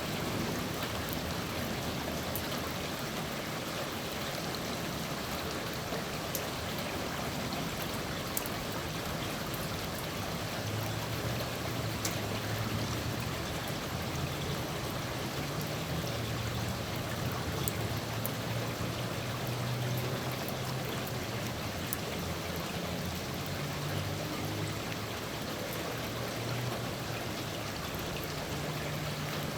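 Steady rain falling, with scattered sharp drip clicks. About ten seconds in, a low rumble of distant thunder comes up and carries on under the rain.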